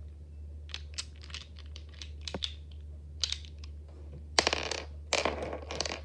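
Small ornamental pumpkins clenched and rubbed together: a series of light clicks and scrapes, then two louder scraping rubs near the end, each about half a second long.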